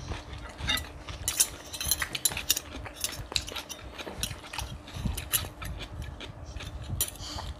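Metal forks and spoons clinking and scraping against ceramic plates and bowls in quick, irregular clicks, over a faint steady hum.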